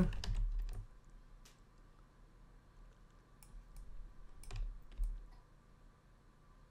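Computer mouse and keyboard clicks: a handful of separate sharp clicks spaced irregularly over several seconds, the clearest two about four and a half and five seconds in, over a faint steady electrical hum.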